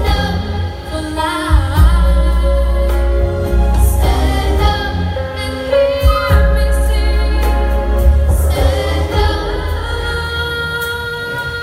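Music: a song with a singing voice over a deep, sustained bass.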